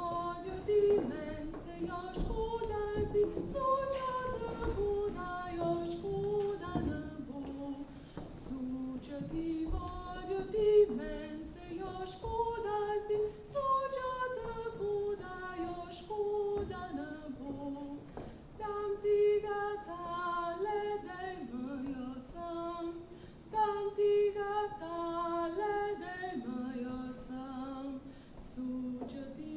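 Women's voices singing a Slovenian folk song unaccompanied, a stepwise melody that runs on without a break, with a few sharp knocks here and there.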